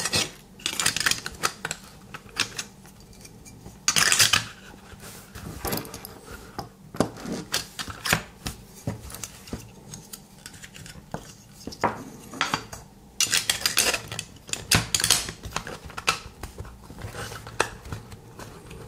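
A DC watt meter's blue metal case being fitted back together by hand: irregular clicks, clinks and short scrapes as the cover plate and case parts are handled and pressed into place.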